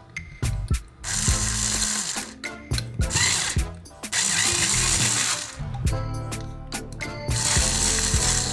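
Workshop tool noise: ratcheting, clicking mechanical work in three bursts of a second or two each, with sharp clicks between, over background music.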